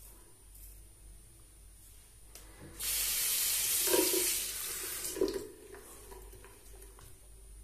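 Bathroom tap running into the sink for about two and a half seconds, starting about three seconds in and then shut off, as a safety razor is rinsed under it between strokes. Two short knocks come during and at the end of the rinse.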